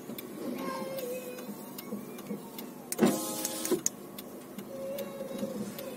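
Car interior noise: a steady engine hum, with a brief, louder buzzy sound about three seconds in.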